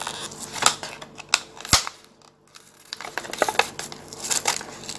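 Plastic blister pack of a Hot Wheels carded car being handled and pried away from its cardboard backing card: irregular crinkles and sharp clicks, with a short lull about two seconds in.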